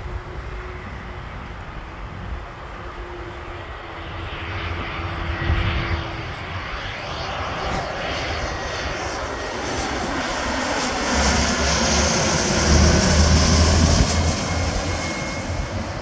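Twin-engine business jet on landing approach passing low overhead: the jet engine noise builds steadily to its loudest a couple of seconds before the end, then begins to fade. A high whine falls in pitch as it passes, and a deep rumble grows in the second half.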